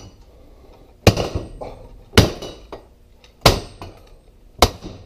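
Four sledgehammer blows on rust-seized square steel tubing, about one a second, each a sharp metallic clang with a short ring. The corroded tubing is fused in place and does not budge.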